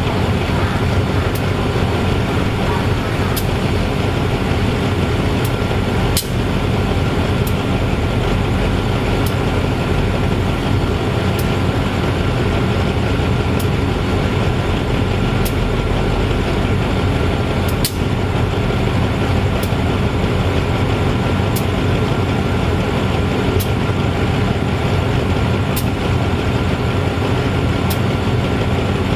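A GE-A class diesel-electric locomotive of the State Railway of Thailand idling at a standstill, its engine giving a loud, steady hum with an even drone. A light tick comes about every two seconds.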